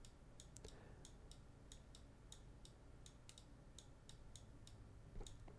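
Faint, irregular clicking of a computer mouse, a few clicks a second, as points are clicked and dragged in animation software; otherwise near silence.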